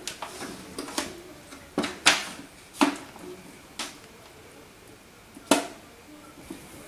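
Sharp knocks and clinks against a large aluminium steamer pot as seasoned duck pieces are packed into it: about seven separate hits spread over several seconds, the loudest about two seconds in and again past halfway.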